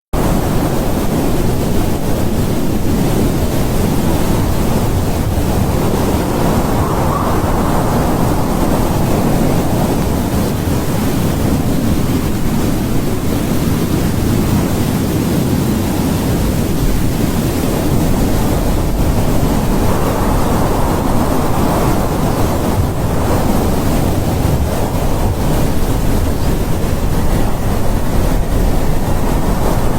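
Strong wind blowing as a steady, loud rush. Slow gusts swell and fade a few times.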